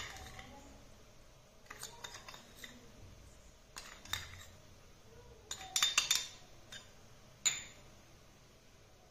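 Steel spoon clinking against small steel bowls while salt is scooped and sprinkled: scattered light clinks, with a quick cluster about six seconds in and one more clink a second or so later.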